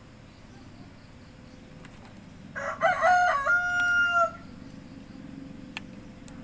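A rooster crowing once, starting about two and a half seconds in: a few broken notes running into one long held note, about a second and a half in all. A couple of faint ticks near the end.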